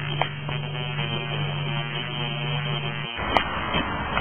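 A steady hum with a few faint clicks. It cuts off about three seconds in, giving way to a rougher noise and one sharp click.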